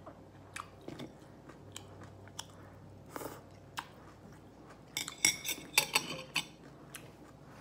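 A person eating: close chewing and crunching with small scattered clicks, and a run of louder, sharper crunches and clicks about five seconds in.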